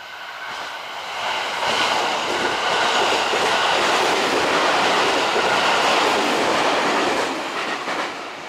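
A train running along the platform track: rail and wheel noise builds over about two seconds, holds steady, then fades near the end.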